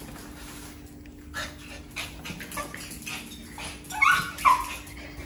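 Maltese dog whimpering and yipping in excited greeting, with two loud short high yelps about four seconds in.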